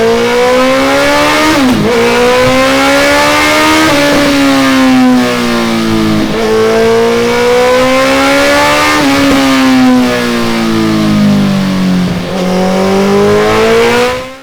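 Suzuki Hayabusa's inline-four engine, breathing through a Delkevic tri-oval stainless steel exhaust, revving hard on a dyno. Its pitch climbs and falls several times, with brief sharp dips, and the sound cuts off suddenly near the end.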